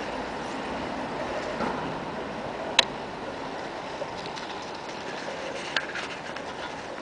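Steady outdoor background noise with a sharp click a little before halfway and a smaller click about six seconds in.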